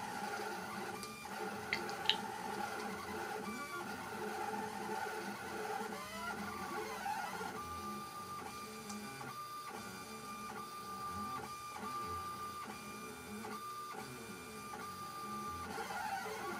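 MPCNC Primo pen plotter's stepper motors whining as the marker head traces short strokes, the pitch changing from move to move with brief stops in between. From about eight seconds in it runs a string of short, evenly spaced moves at one steady pitch. Two sharp clicks come about two seconds in.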